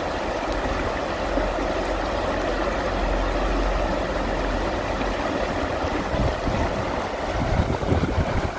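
Running water: a steady rushing noise with a low rumble underneath.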